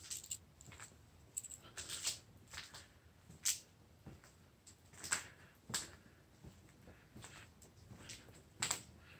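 Footsteps crunching and scuffing on a floor strewn with grit and broken ceiling debris: irregular short crunches, roughly one every half second to a second, the sharpest about three and a half and five seconds in.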